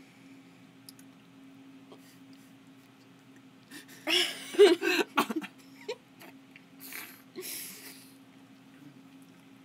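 A short burst of laughter about four seconds in, followed by two breathy exhales, over a steady low electrical hum.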